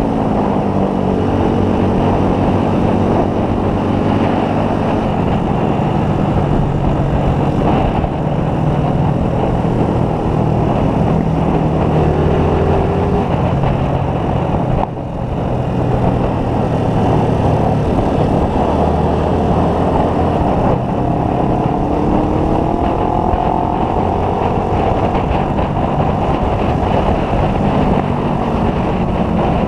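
Motorcycle engine running at road speed under heavy wind rush, its pitch rising and falling with the throttle, with a brief dip in level about halfway through.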